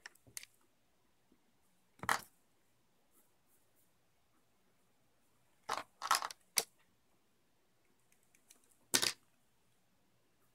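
Short, sharp clicks and taps from handling a pencil and paper on a desk, with quiet between them: one about two seconds in, three in quick succession around six seconds, and one near the end.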